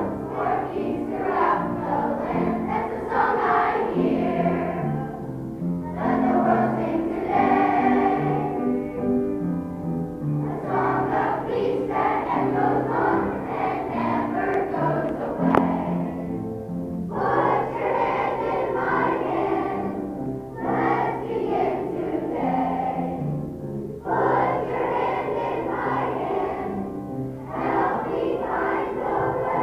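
Large children's choir singing a song, its sung phrases broken by short pauses every few seconds.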